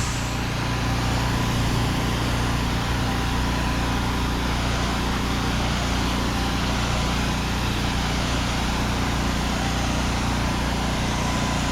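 A 4 GPM pressure washer's engine running steadily, with an even hiss of water spray from a low-pressure rinse.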